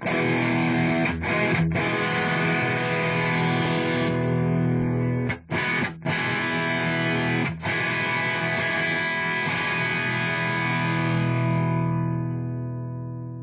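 Distorted electric guitar (Epiphone Les Paul Prophecy through a 2004 Marshall 1959HW Super Lead head and 4x12 cabinet) playing sustained, overdriven chords. The chords are cut off sharply a few times for a split second, and near the end a last chord is left ringing and slowly fading.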